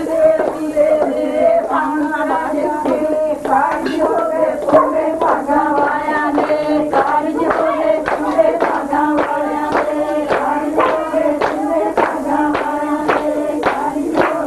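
Group singing with a steady beat of hand clapping.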